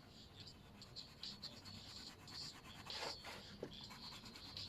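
Faint, quick scratching strokes of a colouring tool on paper while a drawing is coloured in, with one longer, louder stroke about three seconds in.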